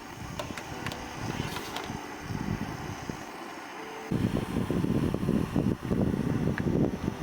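Wind buffeting the camera's built-in microphone: an uneven low rumble that turns much louder and gustier about four seconds in.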